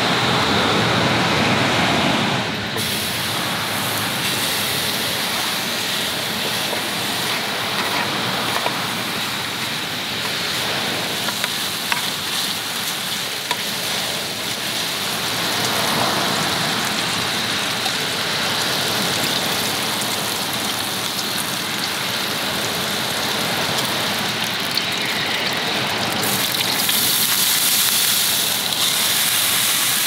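A steady rush of water noise with a few faint ticks scattered through it.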